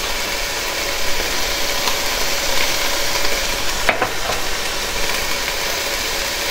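Ground beef browning in a skillet, sizzling steadily, with one sharp click about four seconds in.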